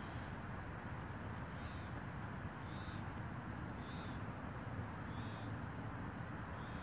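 Steady outdoor background noise with a faint, short, high-pitched chirp repeating about once every second or so, from a small animal.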